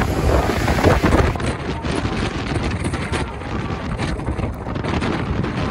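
Wind buffeting the microphone: a steady, uneven rush with no engine tone standing out.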